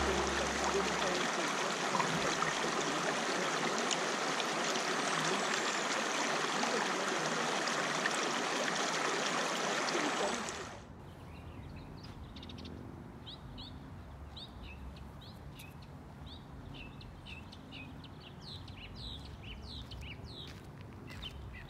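Shallow creek running over rocks, a steady rushing. About ten seconds in it cuts off suddenly to a quieter background with birds chirping many short notes.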